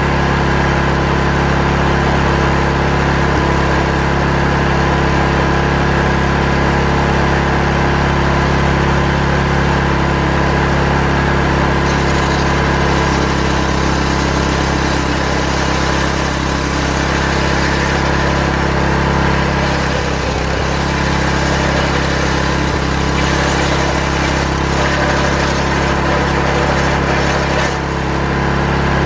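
Engine of a log-ripping saw running steadily, with brief dips in loudness about two-thirds of the way through and again near the end.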